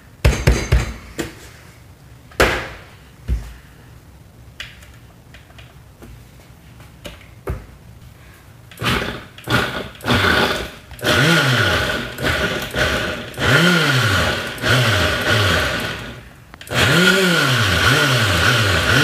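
Countertop blender blending milk, banana and Oreos. A few scattered knocks come first; about nine seconds in the motor starts in short bursts, then runs loud, its pitch rising and falling over and over. It stops briefly near the end and starts again.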